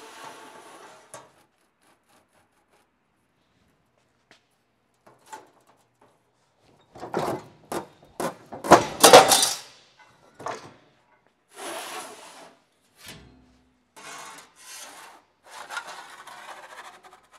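A sheet of steel sliding and scraping across the metal bed of a sheet-metal shear as it is pushed into position for a cut, in several irregular spells, loudest a little past the middle.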